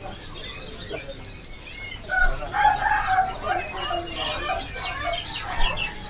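Several caged songbirds chirping and trilling together. A louder, lower-pitched call rises over them from about two seconds in and lasts roughly three seconds.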